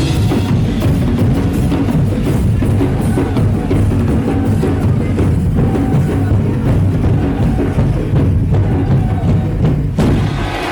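Percussion-driven music with rapid, continuous drumming.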